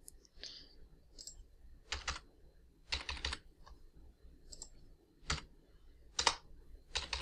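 Computer keyboard keystrokes typed in a few short, uneven groups with pauses between.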